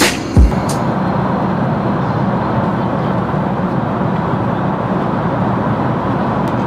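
Steady cabin noise of a jet airliner in flight, an even rushing with a low hum, heard inside the cabin. Music with a heavy bass beat cuts off just after the start.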